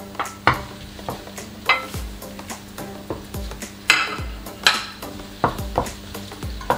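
Wooden spoon knocking and scraping in a nonstick wok as diced red onion is stirred, with the onion sizzling in hot olive oil. The taps come irregularly, a couple a second.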